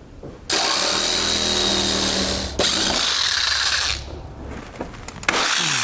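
Handheld rotary tool cutting through the plastic bumper fascia in bursts. It runs loud from about half a second in, eases off at about four seconds, then bites in again near the end.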